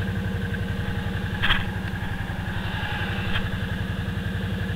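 ATV engine idling steadily, with an even low pulsing. A single short clank about a second and a half in.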